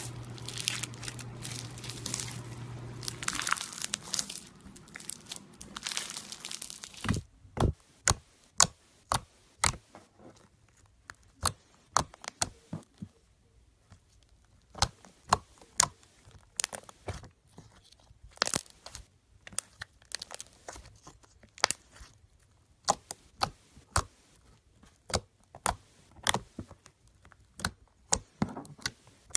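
Hands squeezing green glitter slime with continuous crackling and crinkling. About seven seconds in, this gives way to a hand pressing and folding thick white slime, which makes sharp separate pops and clicks, one to three a second, as trapped air bursts.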